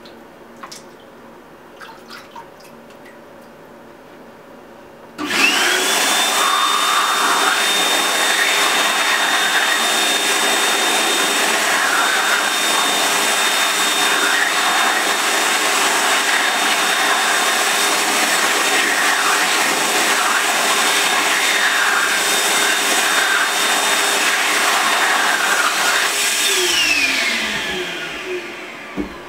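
BioDrier BioLite 900-watt high-speed hand dryer, running with its heater off. It switches on suddenly about five seconds in and blows steadily for about twenty seconds with a high, steady whine, then spins down near the end as the whine falls in pitch. Before it starts, there are a few faint splashes from hands being wetted in a bowl of water.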